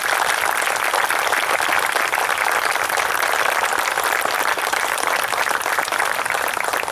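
Crowd applauding: many hands clapping in a dense, steady patter that begins to thin out near the end.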